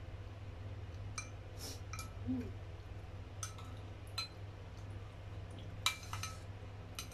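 Metal spoon clinking and scraping against a porcelain rice bowl while food is scooped: about eight light clinks at irregular intervals, each with a brief ring, over a steady low hum.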